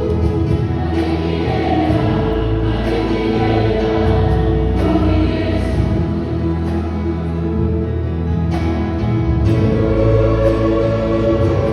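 A choir singing a gospel song with instrumental backing, voices holding long notes over a steady bass.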